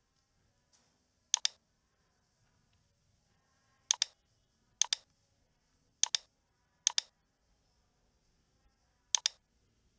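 Computer mouse button clicking, six sharp clicks spaced irregularly, each heard as a quick pair.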